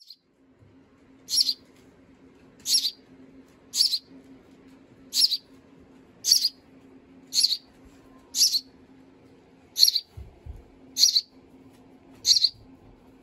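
Baby bird giving short, high, sharp begging chirps, about one a second, as it calls to be fed. A faint steady low hum sits underneath, with a couple of low thumps about ten seconds in.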